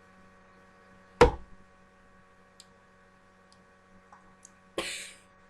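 A single sharp thump about a second in, then a short hiss near the end, with a few faint ticks between, over a steady electrical hum.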